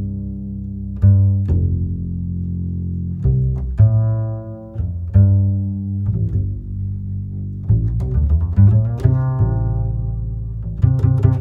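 Instrumental background music of low, sustained notes, each new note starting with a sharp, plucked-sounding attack; no singing.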